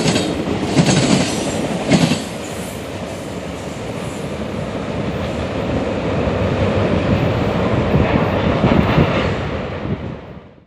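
Freight train cars rolling past on steel wheels. A few sharp clacks over rail joints come in the first two seconds, then a steady rumble and rattle that cuts off suddenly near the end.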